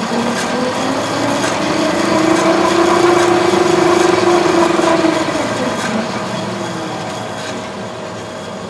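Variable-speed pulley drive of a saw running, its motor and V-belts whining steadily; as the pulley is shifted the whine rises in pitch and gets louder as the blade speeds up, then falls and fades as it slows.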